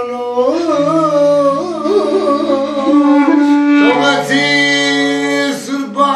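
Clarinet played live, a folk melody with wavering, ornamented bends, then a long held note from about four seconds in until shortly before the end.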